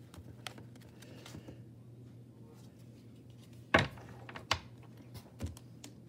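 A few sharp clicks and taps of cards and plastic packaging being handled on a table, the loudest nearly four seconds in, over a low steady hum.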